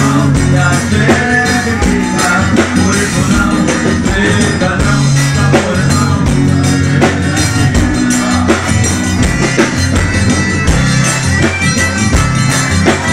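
Live forró band playing: accordion and acoustic guitar over a drum kit keeping a steady beat.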